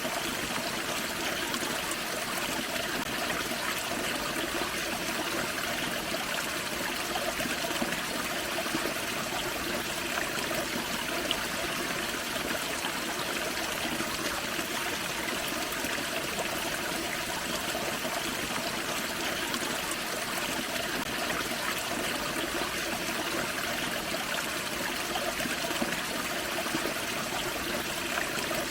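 Small forest creek flowing over a small waterfall: a steady, unbroken sound of running water.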